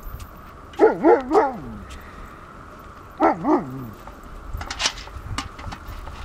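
Greenland sled dog giving a quick run of three short, pitched yelping barks about a second in, then two more about two seconds later. A few sharp clicks follow.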